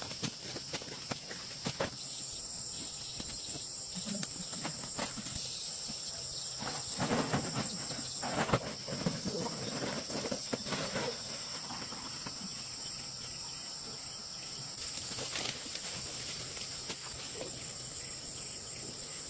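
Insects chirring steadily in a high band, with scattered clicks and knocks that are busiest around the middle.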